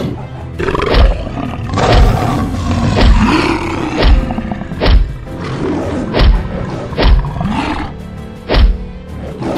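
Sound-effect lion roars and growls mixed with heavy thuds about once a second, over background music.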